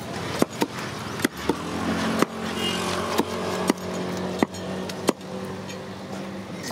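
A knife scraping scales off a large murrel (snakehead) fish and knocking on a wooden chopping block, with sharp knocks about every half-second to second. A steady low hum runs underneath.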